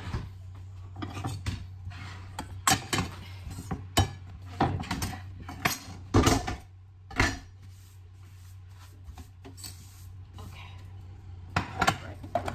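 Kitchen utensils and dishes clinking and knocking on a countertop, with a string of sharp clatters over the first seven seconds, a quieter spell, then two more knocks near the end. A steady low hum runs underneath.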